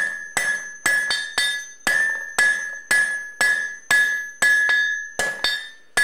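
Hand hammer striking a red-hot mild steel bar on an anvil, about two blows a second with an occasional quick double strike, each blow followed by a bright ringing from the anvil. The hot end of the bar is being flattened.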